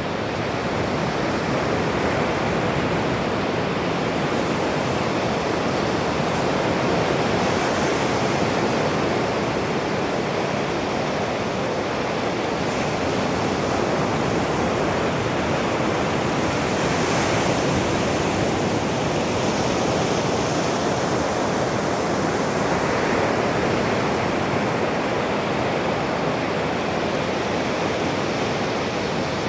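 Ocean surf breaking on a sandy beach: a steady wash of noise that swells slightly as waves come in.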